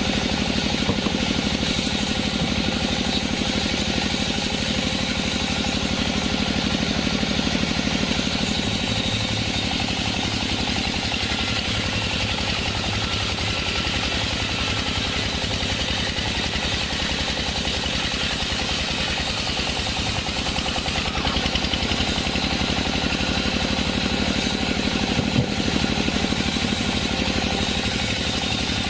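Sawmill machinery running steadily: an engine-like drone with a fast, even rhythm, with no clear change or pause.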